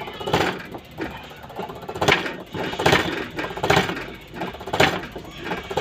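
A series of sharp mechanical strokes, about one a second, over a steady mechanical clatter.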